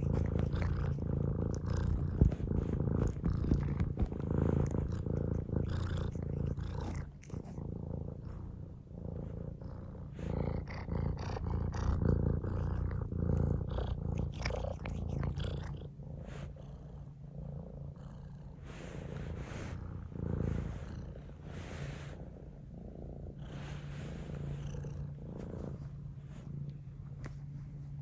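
Domestic cat purring close up, a steady low rumble that pulses in and out with its breathing, softer in the second half.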